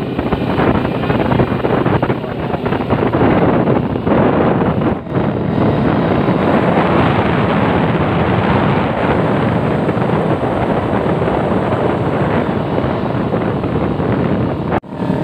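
Wind rushing over the microphone of a camera on a moving motorcycle, with the engine running underneath. The sound cuts out briefly near the end.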